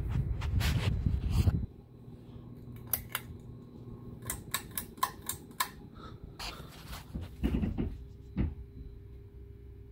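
Hampton Bay Devron II ceiling fan motor humming steadily. A loud rumbling noise comes at the start, a quick run of sharp clicks follows in the middle, and there is a single thump near the end.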